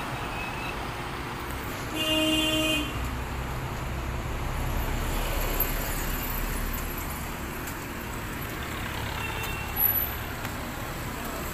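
Road traffic rumbling past, with a vehicle horn sounding once, briefly, about two seconds in.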